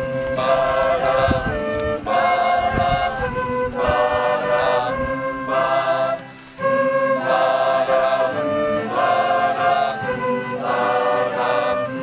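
Mixed choir of men and women singing a hymn in phrases, with a short break about six seconds in.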